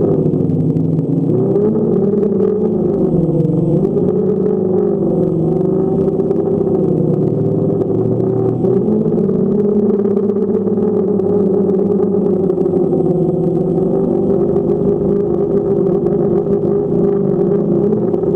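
A quadcopter drone's propellers humming steadily, with a pitch that wavers during the first few seconds and then holds level.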